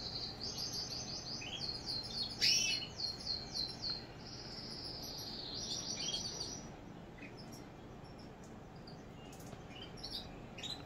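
Caged finches singing: phrases of fast, high trills made of quickly repeated notes, with one sharp louder note about two and a half seconds in. After about seven seconds the song thins to scattered chirps.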